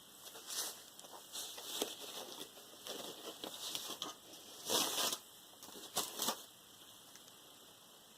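Rustling and handling of an unboxed graphics tablet's packaging and accessories, in irregular bursts, with a louder rustle about five seconds in and two short sharp rustles about six seconds in, then quieter.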